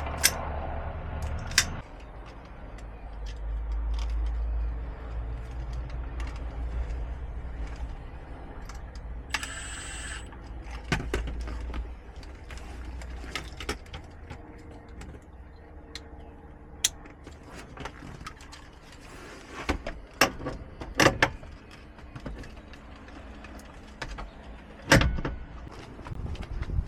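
Scattered clicks, knocks and rattles of keys and hand tools being worked on a car's ignition lock, over a low rumble for about the first ten seconds. A brief high-pitched whir comes about ten seconds in.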